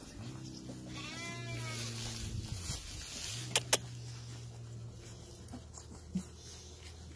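Illyrian shepherd mother and her newborn puppies making nursing sounds: a long, low, steady hum-like moan that dips in pitch and breaks once for breath before going on, with a short high puppy squeal about a second in. Two sharp clicks come close together about halfway through.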